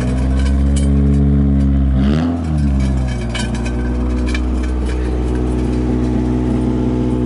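Toyota Corolla AE86 engine idling steadily, with one quick throttle blip about two seconds in that rises and falls back to idle.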